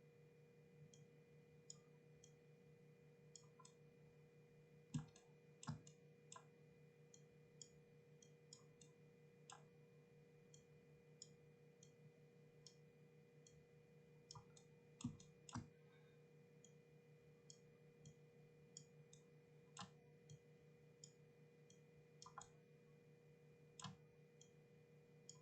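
Faint, irregular computer mouse and keyboard clicks over a low steady electrical hum, with a few louder clicks coming in quick pairs.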